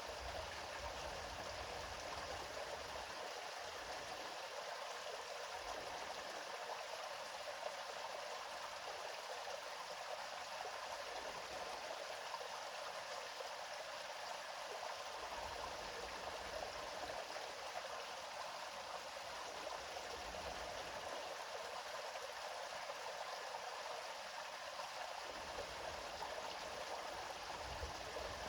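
A river running steadily over rocks, with a constant rushing sound and gentle, irregular low rumbles that swell and fade every few seconds.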